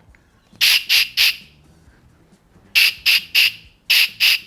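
CO2 inflator canister letting out short puffs of gas in a rhythm, played as a tune: three quick puffs about a second in, then three more and two more after a pause.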